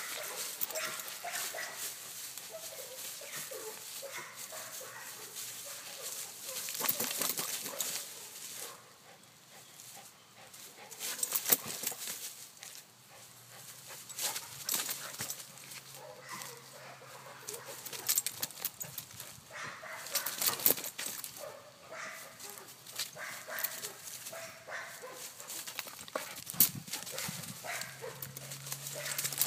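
Pit bull tugging and thrashing on a springpole rope, vocalizing as it pulls, with irregular bursts of dry leaves crackling under its paws.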